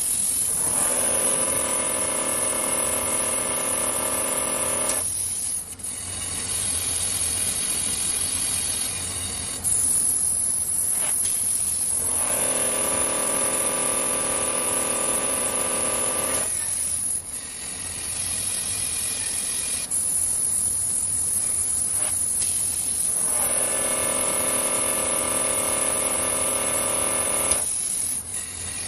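Polishing machine with a cloth buffing wheel running against the bottom of a metal pressure cooker turning on a spindle: a steady machine whine. Three times, for about four seconds each, it swells into a stronger pitched whine as the wheel works the pot.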